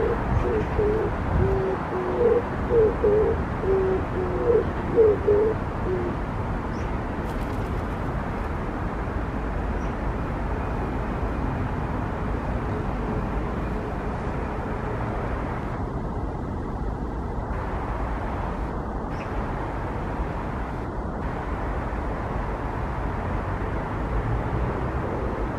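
Oriental turtle dove cooing: a run of low, hooting coos in the first six seconds or so, with a few more near the end, over a steady low rumble.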